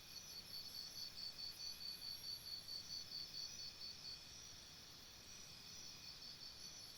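Insect chirping in a high, even pulse of about five chirps a second. It stops about four seconds in and starts again near the end.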